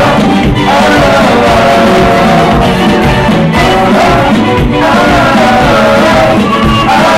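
Live band with electric guitars and keyboards playing loudly, a singer's voice carrying the melody over a steady beat.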